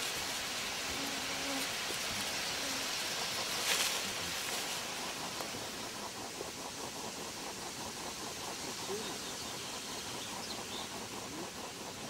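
Outdoor forest ambience: a steady hiss, with a brief rustle in the leaf litter about four seconds in, then a faint, fast, even ticking.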